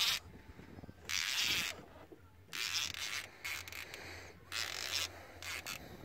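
Baitcasting fishing reel being cranked in short bursts of whirring, three main ones about a second and a half apart with shorter ones near the end.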